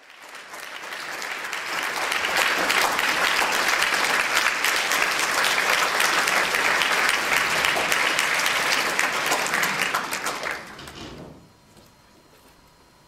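Concert-hall audience applauding, building over the first two seconds, holding steady, then dying away about eleven seconds in.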